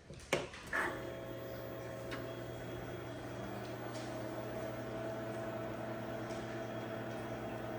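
A Radio Shack TRS-80 Model II computer is switched on for its first power-up: a sharp click, a short burst just under a second in, then a steady low hum as the machine runs.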